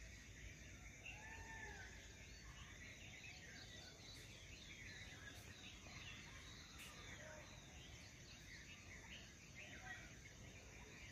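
Faint birds chirping and calling, many short chirps throughout over a low steady background noise.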